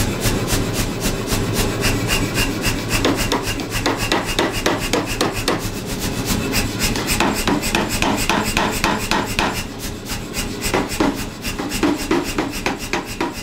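Power hammer striking a red-hot bar of leaf spring steel in a fast, steady rhythm of about five blows a second, forging it out.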